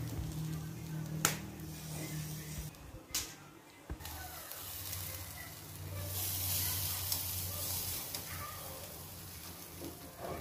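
Chicken wings sizzling on a wire grill rack over charcoal, with metal tongs clicking against the rack as the pieces are turned: two sharp clicks in the first few seconds. The sizzle swells a little past halfway.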